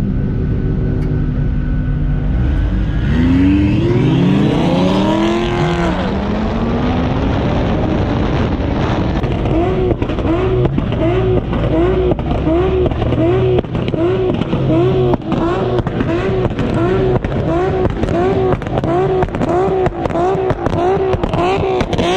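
A car engine revving hard, its pitch climbing and then falling away. It then settles into a regular pulsing rise and fall of revs, about three pulses every two seconds.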